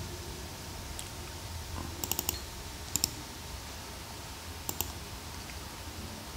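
Computer mouse buttons clicking: a single click about a second in, a quick run of three or four clicks near two seconds, then two pairs of clicks, as a file is pasted through a right-click menu. A steady low hum runs underneath.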